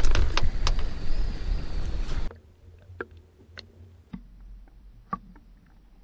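Wind buffeting an action camera's microphone on an open boat, a steady rumbling rush. About two seconds in it cuts abruptly to the much quieter, muffled sound of the camera held underwater, with a few sharp isolated clicks.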